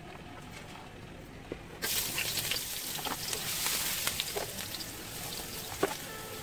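Julienned ginger hitting hot oil in a nonstick wok: a sudden sizzle starts about two seconds in and keeps going, with scattered crackles and pops.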